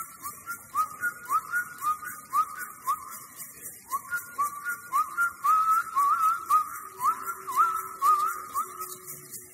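A person whistling an icaro melody, each short note scooping upward into a held tone, with a brief pause partway through. A faint rhythmic shaking rattle runs underneath.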